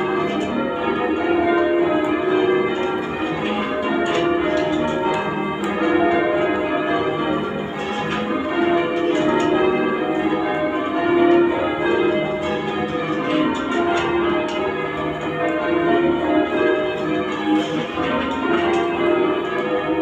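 Bristol Cathedral's ring of eight church bells (21 cwt tenor, tuned to E-flat) being rung full circle in change ringing. The strikes follow one another steadily, each bell sounding in turn, the tones overlapping and ringing on.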